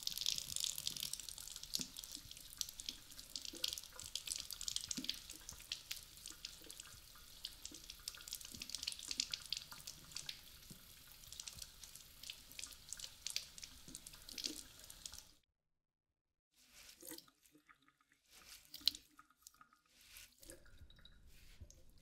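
Kitchen tap water running and splashing over a vacuum cleaner brush bar as it is rinsed and rubbed by hand. The flow stops suddenly about fifteen seconds in. Then come faint scattered clicks and rubbing as the wet brush bar is handled, with one sharper click a few seconds later.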